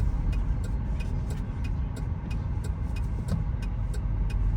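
Car driving, heard from inside the cabin: a steady low road and engine rumble, with a light regular ticking over it.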